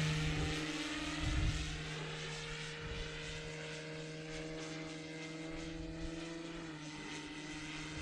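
Twin electric motors and propellers of an E-flite Beech D18 RC plane droning steadily in flight, growing fainter over the first couple of seconds as it flies away. The pitch drops slightly near the end.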